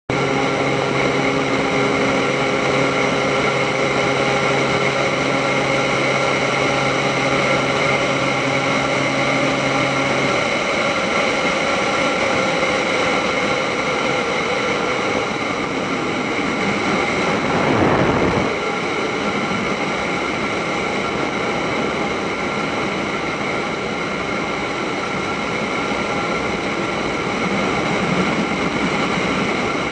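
Beechcraft Bonanza's piston engine and propeller running steadily at takeoff power. About ten seconds in, the low engine tones cut out as the engine fails, leaving steady wind and airframe noise and a slowly falling tone. A brief surge of rushing noise comes a little past halfway.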